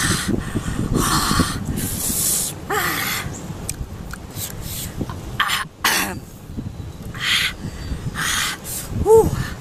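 A man gasping and hissing through an open mouth, with short sharp breaths about once a second and three brief pitched cries, the last and loudest near the end: his reaction to the burn of siling labuyo chili peppers.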